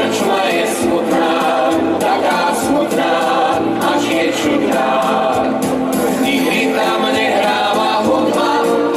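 Music with a group of voices singing.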